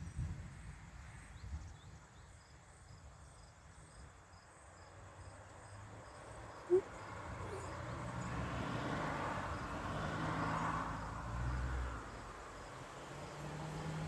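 Outdoor ambience before a thunderstorm: faint crickets chirping in an even rhythm over a low rumble of wind. About halfway through, a broad whoosh builds and then eases.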